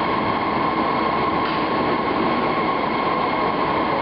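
Steady drone of crumb-rubber processing machinery running on the factory floor: an even mechanical noise with a faint steady hum on top.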